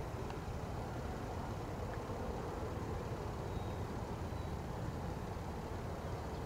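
Low, steady drone of distant turboprop engines, a noisy rumble without a clear pitch, from a de Havilland Canada DHC-6-200 Twin Otter's Pratt & Whitney PT6A engines on short final.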